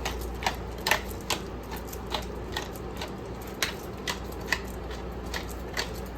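Sharp, uneven clicks and taps, about two a second, as black pepper is put on the chicken in the pan, over a steady low hum.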